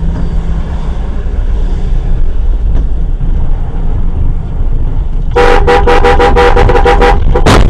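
A vehicle horn honked in a fast string of short blasts starting a little over five seconds in, with one more just before the end, over the steady low rumble of a bus driving on the road.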